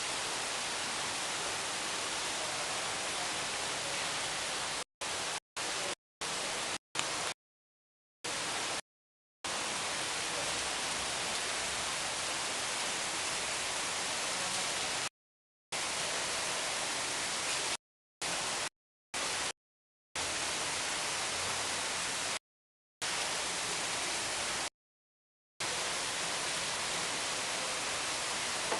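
Water running off a portable artificial waterfall, a steady even rush of falling water, cut off abruptly by several short gaps of complete silence.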